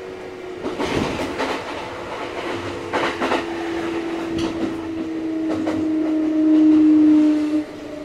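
Onboard running sound of a Kintetsu 1230 series electric train. The whine of its Hitachi GTO inverter drive falls slowly in pitch, swells and cuts off suddenly near the end. The wheels clatter over rail joints about a second in and again around three seconds in.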